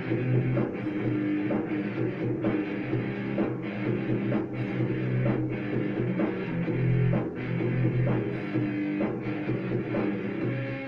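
Instrumental rock passage: guitar over a steady drum-kit beat, with no vocals.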